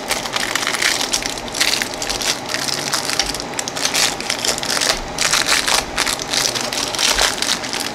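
Clear cellophane wrapper crinkling and crackling without pause as hands peel it off a roll of washi tape.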